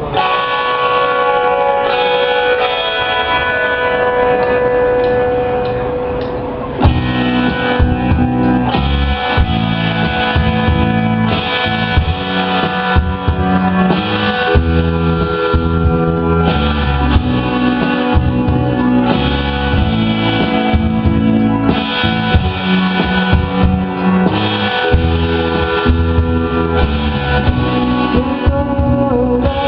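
Live rock band playing instrumentally. Electric guitar and synthesizer hold notes alone at first, then about seven seconds in the bass and drums come in together and the full band plays on.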